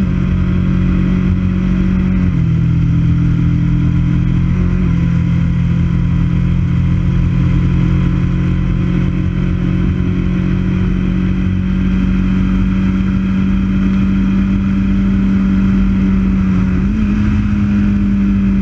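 Motorcycle engine running at a steady cruise, heard from the bike with a constant rush of wind and road noise. Its note shifts slightly a couple of times early on and rises a little near the end.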